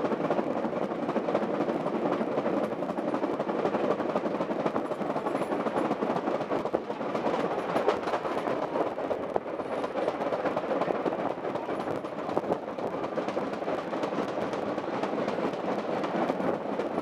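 Steam-hauled train running, heard from an open passenger wagon: a steady rumble of wheels on the track with the locomotive working ahead.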